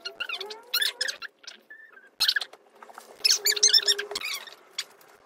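Short, irregular squeaks and rustles of plastic kit parts being handled and pressed together during assembly.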